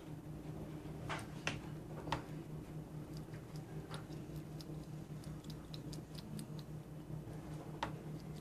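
Irregular small clicks and ticks of a grey squirrel nibbling and licking food off a fork, with a few louder clicks, over a steady low hum.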